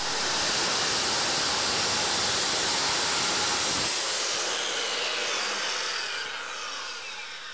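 Electric saw with a circular blade held flat, cutting through a wooden door jamb to undercut it. After about four seconds the cut ends and the blade winds down with a falling whine that slowly fades.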